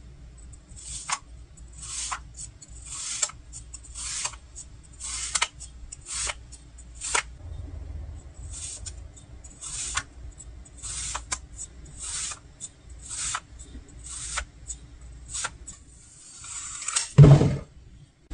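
Slime being squished and worked by hand: a series of short hissy squelches with little clicks, about one a second. Near the end a longer crackling squelch builds into one loud, deep squish.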